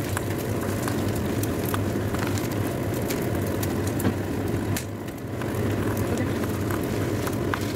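Steady roar of a gas stove burner under an aluminium wok of simmering vinegar and vegetables, with scattered light taps and scrapes of a wooden spatula stirring. The level eases briefly about five seconds in.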